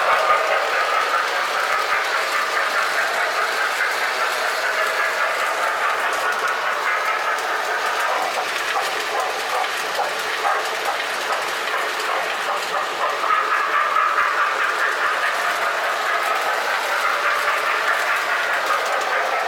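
Toy electric trains running on the layout's track: a steady rattle of wheels rolling over the rails and track joints, growing a little louder about 13 seconds in as a train comes closer.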